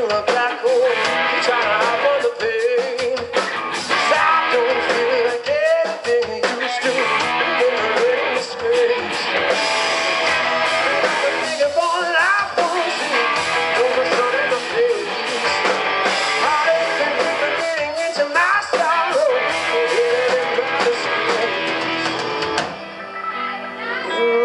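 Live rock band playing loud with electric guitars and drums, a lead line bending and wavering over the band. The music drops back briefly near the end.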